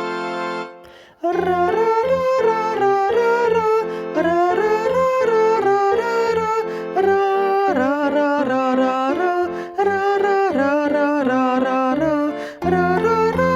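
Music with a clear melody line moving in short phrases. It begins after a brief drop in sound about a second in.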